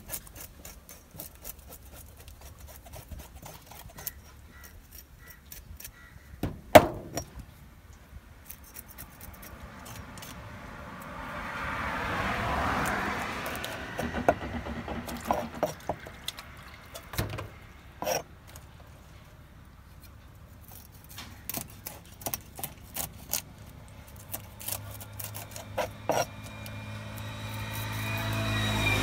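A knife scraping scales off and chopping small freshwater fish on a wooden cutting board: irregular scrapes, taps and knocks, with one sharp knock several seconds in. A rushing noise swells and fades around the middle, and a humming tone builds near the end.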